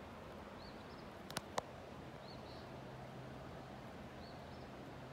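A small bird calling faintly over and over, a short high arched note followed by a buzzier one, about every two seconds, over a steady outdoor hiss. Two sharp clicks about a second and a half in are the loudest sounds.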